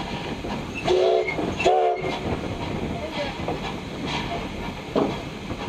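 Steam locomotive whistle giving two short blasts about a second in, several tones sounding together, over the steady rumble and hiss of the locomotive heard from inside its cab.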